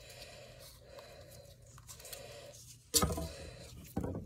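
Plastic handling noise as foam darts are forced into a tight Nerf magazine, faint scraping and rubbing, then two sudden louder knocks or rustles about three and four seconds in, the first the louder.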